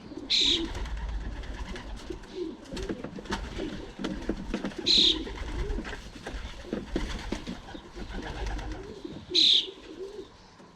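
Racing pigeons cooing in a loft, a low wavering coo that goes on throughout, with scattered small clicks and scuffles. Three short, sharp high-pitched sounds, the loudest things here, come about half a second, five seconds and nine and a half seconds in.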